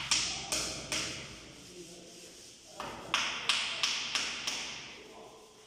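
Sharp taps against a square wall panel as it is knocked into place: three in the first second, then a run of six at about three a second.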